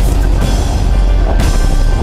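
Background music laid over the footage.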